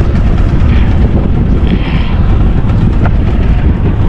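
Wind buffeting the microphone, a loud steady rumble, with a single light click about three seconds in.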